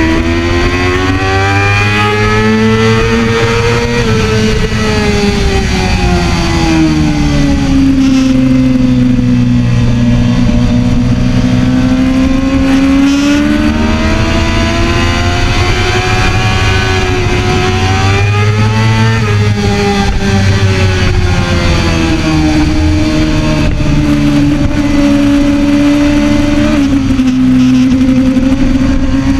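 2013 Kawasaki ZX-6R's inline-four engine running hard at high revs, heard from on board the bike, its pitch rising and falling in long smooth swells as the rider opens and closes the throttle through corners.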